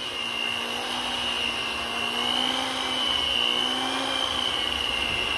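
Electric mixer running steadily, beating royal icing, with a constant motor whine that wavers slightly in pitch.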